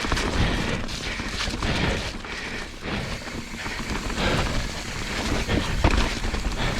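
Mountain bike riding over a wet trail, heard from a camera on the rider: steady tyre and wind noise with a low rumble on the microphone, and irregular knocks and rattles from the bike.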